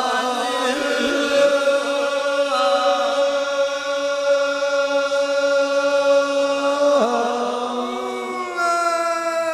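Devotional name-chant sung by one voice, holding a long steady note for about six seconds. The pitch drops about seven seconds in, and a new held note follows near the end.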